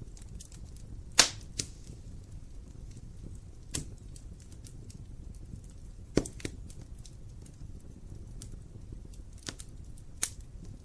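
Wood fire burning in a fireplace: a low steady rumble of the flames with irregular sharp crackles and pops of the burning logs, three of them louder, about a second in, past the middle and near the end.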